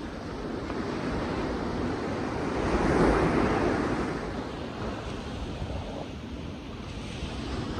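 Sea waves breaking on a beach: the surf swells to a peak about three seconds in, then eases back into a steady wash.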